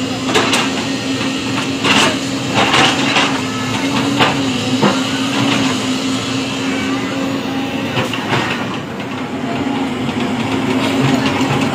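Tracked JCB excavator's diesel engine running steadily under load, with scattered clanks and knocks from the bucket and tracks as it shoves a large boulder.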